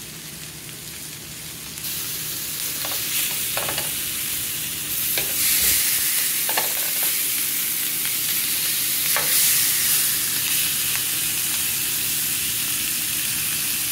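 Chilli-marinated chicken leg quarters sizzling on a ridged nonstick grill pan, with a few sharp clicks of metal tongs against the pan as the pieces are turned. The sizzle gets louder about two seconds in and again about five seconds in.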